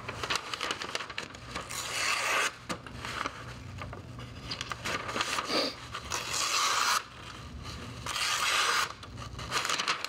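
The freshly sharpened small blade of a Victorinox Swiss Army knife slicing through a sheet of glossy printed paper, a slicing test of the new edge. It cuts in several long scraping strokes, each about a second.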